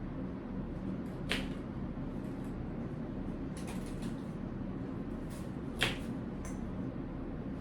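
Scattered clicks and knocks of a baby stroller's frame and fittings being handled while it is folded, two sharper clicks standing out, over a steady low room hum.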